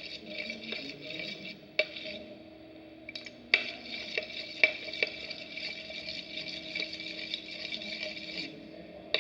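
Clear glue and water being stirred in a tray with a stirrer: a crackly, scraping swish with sharp clicks of the stirrer against the tray. It stops for about two seconds near the start, then goes on until near the end.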